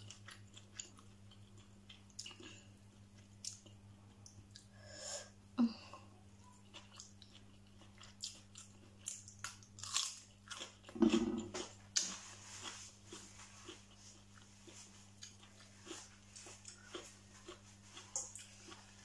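A person chewing and biting a mouthful of stir-fried instant noodles with vegetables close to the microphone: a run of short wet clicks and smacks, loudest about eleven seconds in.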